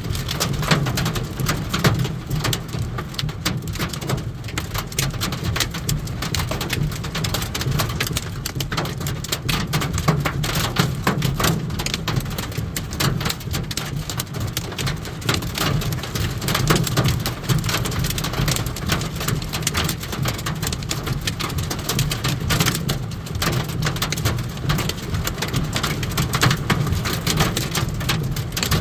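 Hail pelting down: a dense, continuous clatter of many small impacts, with a steady low rumble underneath.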